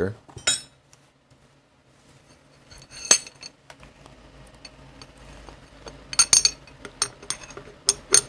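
Light metal clinks and taps of a steel installer rod being handled and slid through a motorcycle wheel hub: one sharp clink about three seconds in, then a cluster of clinks near the end.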